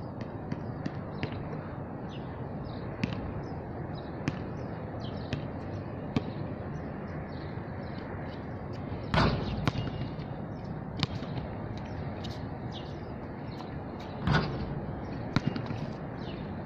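A basketball hitting the rim and backboard of an outdoor hoop, loudest twice, about nine and fourteen seconds in, with scattered sharper knocks of the ball bouncing on the court, over steady outdoor background noise.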